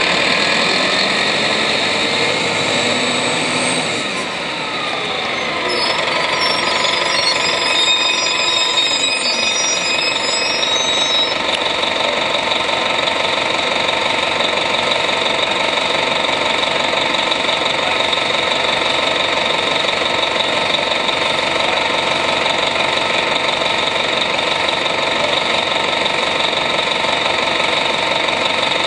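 Detroit Diesel Series 50 diesel engine of a 1996 Nova Bus RTS transit bus running while the bus is under way, heard from inside the bus: a steady engine drone with a steady whine above it. About four seconds in the level dips briefly and the pitch glides as the bus changes speed, then the drone runs on steadily.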